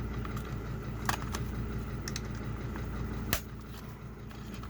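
Small sharp clicks from the plastic housing of a car's HVAC climate control module as it is pried and popped apart, the sharpest about three seconds in, over a steady low hum.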